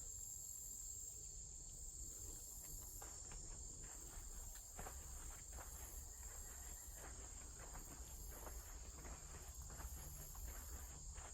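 A steady high-pitched insect chorus, with light, irregular footsteps crunching on a leafy woodland path.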